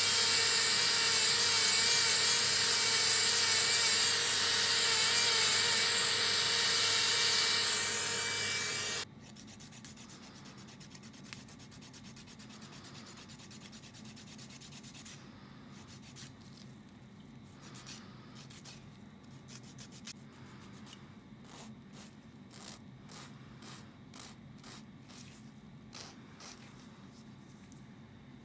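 Podiatry nail drill with a rotary burr grinding down a thick fungal toenail, debriding and thinning it: a steady motor whine with a few wavering tones over a loud grinding hiss. The drill stops abruptly about nine seconds in, leaving faint scraping and light clicks.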